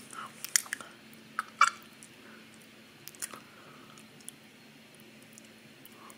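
Close-miked chewing of crackers with cream cheese: wet mouth clicks and smacks, busiest and loudest in the first two seconds, then a few sparse clicks.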